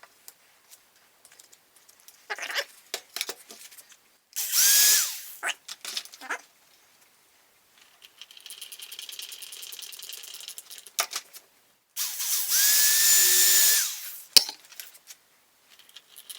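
Electric drill running in two bursts, a short one about four seconds in and a longer one of about two seconds about twelve seconds in, its whine rising as it spins up and then holding steady. In between come knocks and clicks of tools and wood being handled, and a faint fast ticking for a few seconds.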